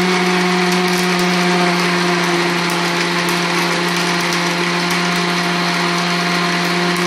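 Electric mixer grinder (mixie) running steadily at full speed, blending phalsa berries with sugar and water: a loud, even motor hum under a wide whirring wash.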